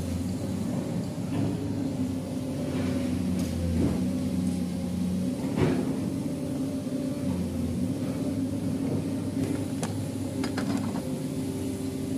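A steady droning hum from a motor running in the background, with a few short metallic clinks and knocks as heavy transmission gears are handled in an open gearbox case, the sharpest a little past halfway and a small cluster near the end.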